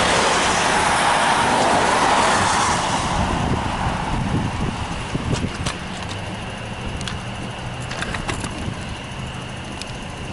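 Road vehicle noise: a loud rushing that fades away over the first few seconds, as of a vehicle passing, leaving a low steady hum with a few short clicks.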